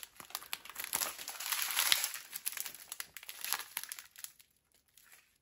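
Small plastic bags of square diamond-painting drills crinkling as they are handled, a dense irregular crackle that thins out and stops about four and a half seconds in.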